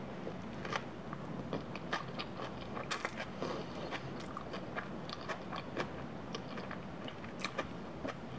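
A person biting into and chewing a soft flour tortilla wrap of scrambled egg and feta cheese: quiet, irregular clicks and smacks of the mouth.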